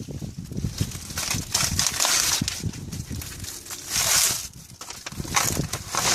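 Outer wrapping being torn and crinkled off a large pack of firecrackers: irregular crackling and rustling, with two louder rustling surges about two and four seconds in.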